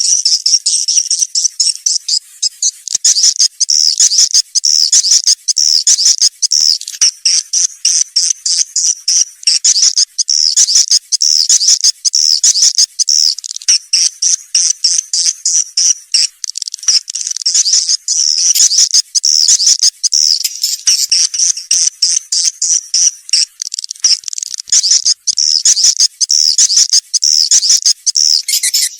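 Swiftlet lure call recording: dense, rapid high-pitched twittering chirps of swiftlets, repeating quickly and without pause. It is a playback sound used to lure young swiftlets into a nesting house.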